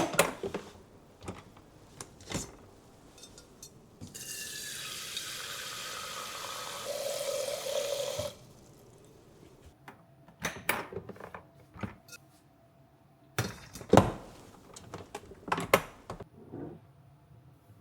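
Kitchen tap running into a sink for about four seconds, with sharp knocks and clatter of things being handled before and after it.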